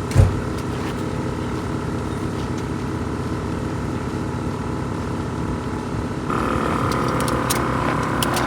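An engine running steadily, with a single thump just after the start. About six seconds in it gets louder and brighter.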